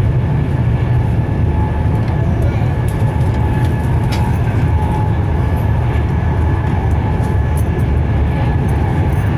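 Interior of a Class 390 Pendolino electric train running at speed through a tunnel: a loud, steady rumble of wheels and rushing air, with a faint steady high whine above it.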